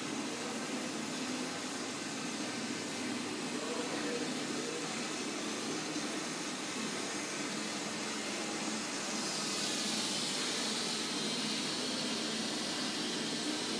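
Steady rushing noise with no distinct events, turning brighter and hissier about nine seconds in.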